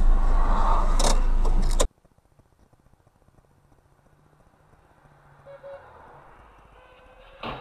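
Car driving, heard from inside with a dashcam: steady road and engine rumble with a click about a second in, cut off abruptly after about two seconds. What follows is a faint low hum with two short beeps, then a sharp click near the end.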